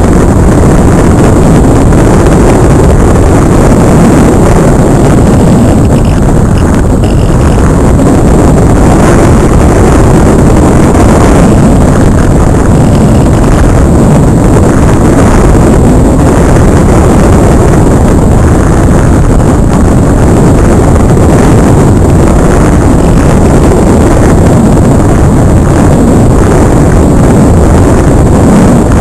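Loud, steady rush of wind buffeting the onboard camera's microphone on a Multiplex Cularis model aircraft in flight.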